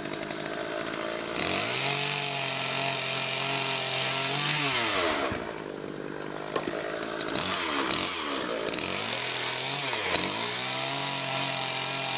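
Chainsaw coming up to full speed suddenly about a second in and running steadily with a high whine. Its pitch winds down about five seconds in, then it runs again, dipping and recovering twice near the end.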